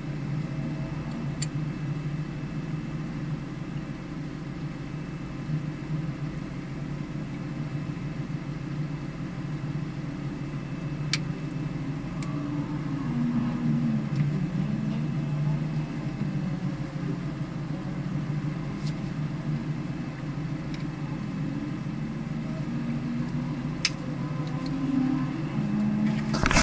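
A vehicle engine running at a low, mostly steady speed, its pitch rising and falling slightly, with a few faint sharp clicks.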